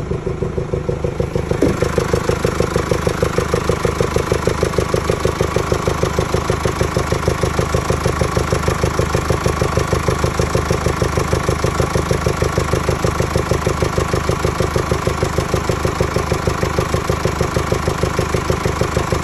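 Mercedes OM654 four-cylinder diesel idling with a steady, rhythmic deep blowing noise that seems to come from the air intake: the sign of failed rocker-arm bearings that have damaged the camshaft lobes.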